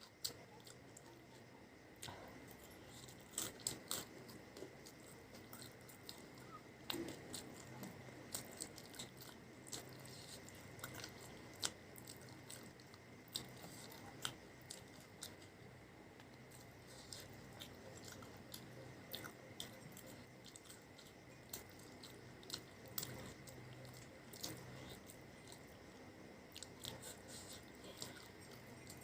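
Close-miked chewing and biting of fried potato snacks, faint and irregular: wet mouth clicks and small crunches.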